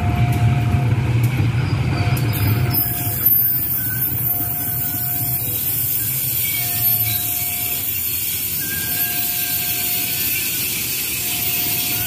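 A KAI CC 204 diesel-electric locomotive running as it approaches slowly on a shunting move. Its engine drone is strongest for the first few seconds, then steadier and quieter. A short tone of about a second repeats roughly every two seconds.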